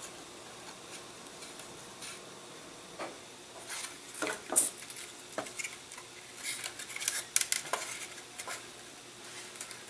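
Light clicks, taps and rustles of thin laser-cut balsa and plywood model-airplane parts being handled and fitted together on a workbench, starting about three seconds in as scattered small knocks.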